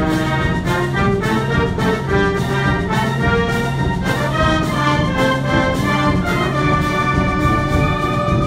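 Symphonic wind band playing a festive pasodoble (pasodoble festero) live, brass and woodwinds carrying the melody over a steady marching beat and low bass.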